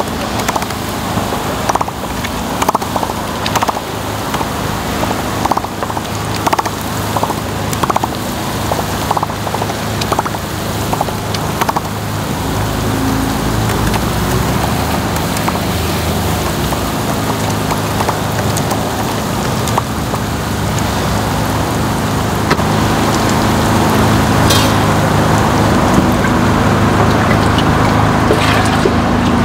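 Takoyaki batter sizzling on a hot griddle pan, with frequent light clicks and taps of metal picks in the first half, over a steady low hum.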